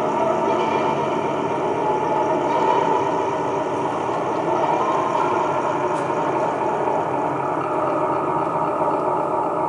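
Live improvised sound score: a steady, dense drone with no beat, a few faint held tones running through it.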